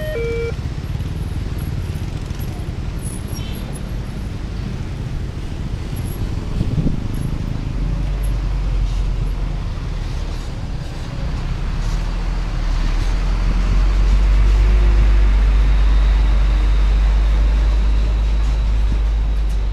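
Road traffic moving off over a railway level crossing: many motorcycles passing, then a heavy truck's diesel engine rumbling past close by, loudest a little past the middle. The crossing's two-tone warning alarm cuts off about half a second in.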